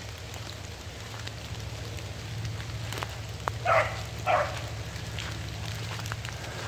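Walking through wet woodland undergrowth: wet leaves and stems rustling and swishing, with scattered small ticks and drips. Two short, louder sounds come close together about halfway through.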